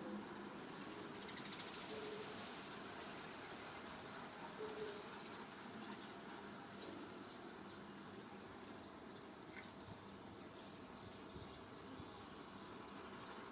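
Faint outdoor insect and bird ambience: a high hissing drone for the first few seconds, then a run of short, high chirps repeating about twice a second.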